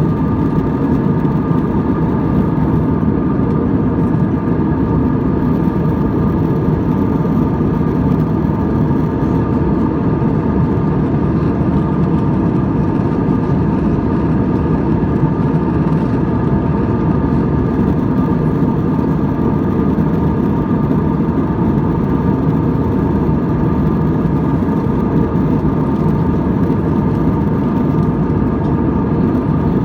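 Jet airliner engine and airflow noise heard from inside the cabin in cruise: a steady, deep rush with a few faint steady tones above it.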